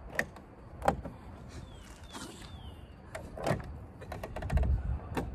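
Plastic M-style colour stripe inserts being pressed into a BMW F10's kidney grille by hand, giving several sharp clicks as they snap into the grille slats, the loudest about a second in.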